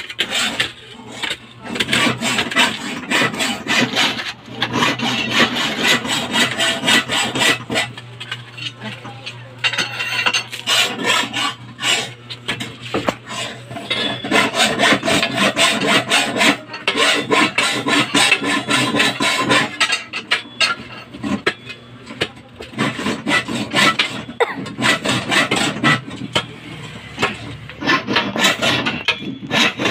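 Hand digging in stony earth and rubble: a steel digging bar scraping and knocking against rocks and soil, a dense run of gritty scrapes and knocks. A faint steady low hum runs beneath for the first two-thirds.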